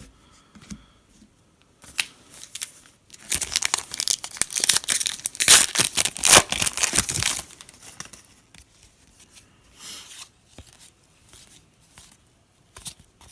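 A trading card pack's foil wrapper being torn open and crinkled, with a long loud stretch of tearing and crackling in the middle and a few shorter crinkles before and after.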